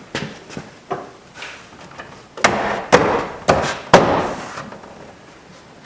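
Sharp knocks on a GMC Sonoma pickup's door as a new exterior door handle is pushed and worked into place so its pins seat: a few light taps, then four loud knocks about half a second apart.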